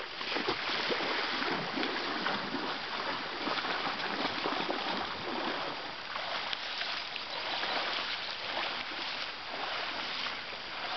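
Steady water noise: splashing and pattering that comes up in level at the start and carries on unevenly.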